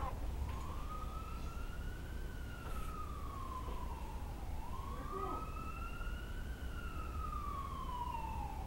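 Emergency vehicle siren in a slow wail, rising and falling in pitch twice, each sweep lasting about four seconds.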